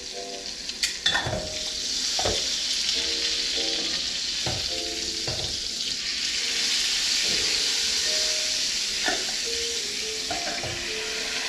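Steak sizzling in a hot frying pan. The sizzle swells about a second in as the lid comes off, and there are a few clinks of the metal tongs and the pan lid.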